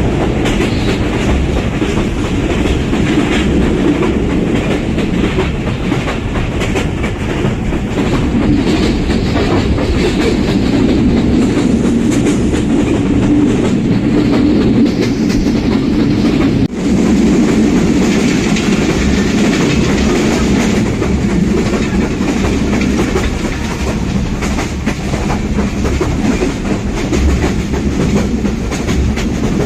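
Express passenger train running along the track: a steady, loud rumble of wheels on rail with a clickety-clack of the wheels passing over rail joints.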